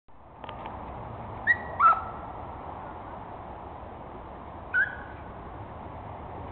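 Three short, high-pitched yelps from an excited Dutch Shepherd cross police dog, each dropping a little in pitch: two in quick succession about a second and a half in, and one more later. A steady hiss runs under them.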